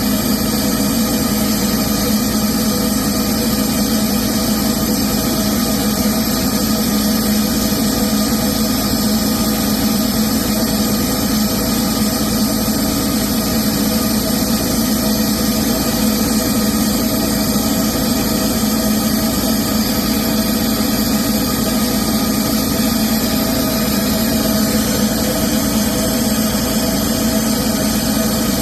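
Diesel engine running at a steady, unchanging speed with no revving, as during a parked DPF regeneration.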